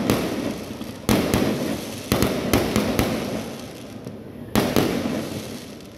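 Aerial fireworks going off: three sharp bangs, about a second in, two seconds in and past four and a half seconds, each followed by a fading crackle of sparks.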